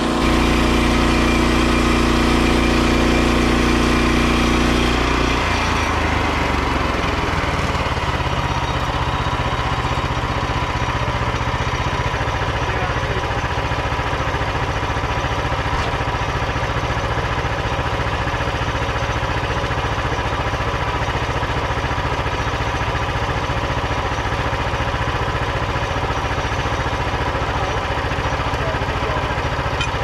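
Frontier OS27 portable bandsaw mill's petrol engine running at higher revs for the first five seconds while the saw head is pushed through the log, then dropping to a steady idle.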